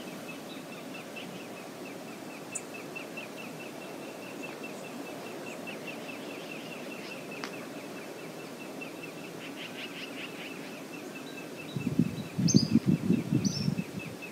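Steady rush of flowing river water, with a small bird chirping rapidly and without a break, about four chirps a second. Near the end a loud, low, rumbling burst lasts about two seconds, with a few higher bird calls over it.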